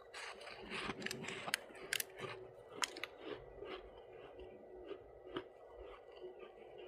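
Close-miked crunching of soft freezer frost as it is bitten and chewed: a run of sharp, crisp crackles, loudest and densest in the first three seconds, then fainter and sparser.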